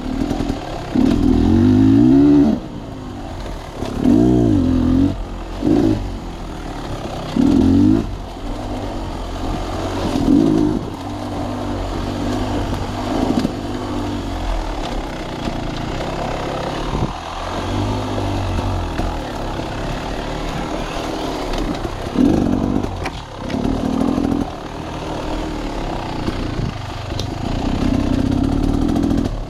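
An engine revving in repeated surges, its pitch climbing and dropping every few seconds, with a steadier stretch of running in the middle.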